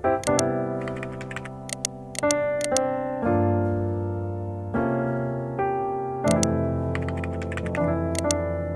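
Background music led by keyboard: chords changing every second or so over a held bass note, with a few light high ticks.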